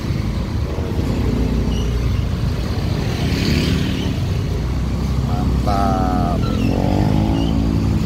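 Roadside traffic: a steady low rumble of small motorcycle engines and cars moving past at close range. Near the end a motorcycle engine close by rises in pitch as it revs up. Voices of passers-by are heard now and then.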